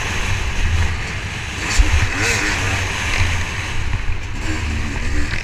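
Motocross bike's engine running hard under heavy wind buffeting on the on-board camera's microphone, its pitch rising and falling a few times, with a few short knocks.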